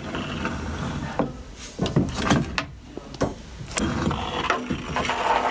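Irregular knocks and scraping, a few sharp knocks among rubbing sounds, as of things being handled and moved by hand.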